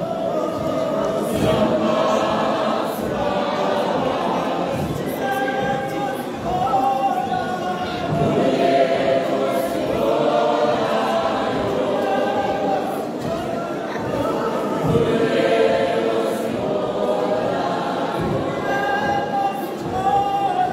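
A church choir of men and women singing together in held, flowing phrases.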